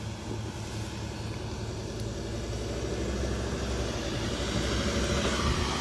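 Four-wheel-drive's engine running steadily under load, growing gradually louder.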